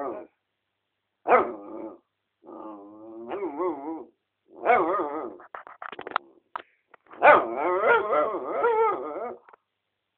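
A mixed-breed dog making drawn-out vocal noises whose pitch wavers up and down, in four bouts with short gaps, the last the longest. These are the noises he makes when he wants attention or is feeling playful.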